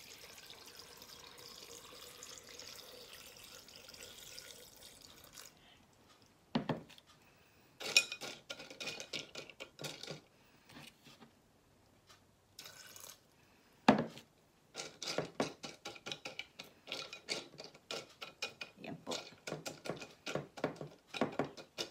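Water poured from a plastic jug into a glass vase of pebbles, a steady trickling splash for about five seconds. Then pebbles clink and rattle against the glass as a hand shifts them, in irregular runs of clicks with a couple of louder knocks.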